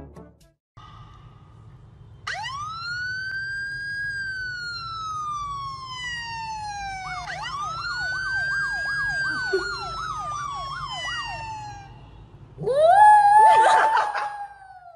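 A siren sound played from a phone, twice rising quickly and then falling slowly in pitch, the second time with a rapid warble over it. Near the end a small white curly-coated dog howls along in a loud rising howl that holds and then falls away, the loudest sound here.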